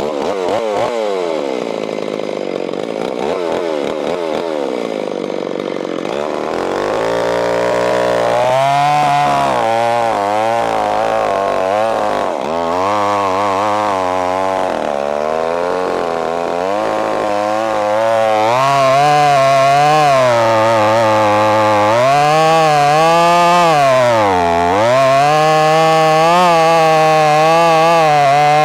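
A ported Stihl 026 two-stroke chainsaw with a 28-inch bar revs unevenly at first, then cuts into a large white oak log from about six seconds in. Under load its engine pitch wavers and dips, most sharply near the end. The chain is biting poorly; the owner calls it dull ('hooched').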